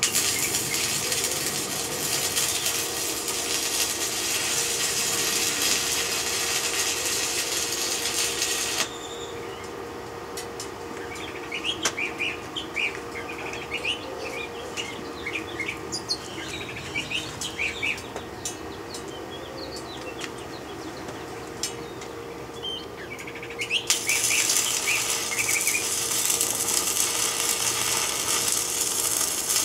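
Electric arc welding on steel plate: a loud crackling hiss. It stops about nine seconds in, leaving small birds chirping, and the arc starts again about 24 seconds in. A steady hum runs underneath.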